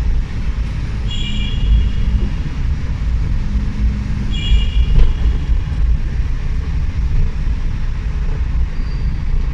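Suzuki Every Wagon (DA17W) kei van driving through a tunnel, heard from inside the cabin: a steady low rumble of road and engine noise. Two short high tones sound over it, one about a second in and one about four seconds in.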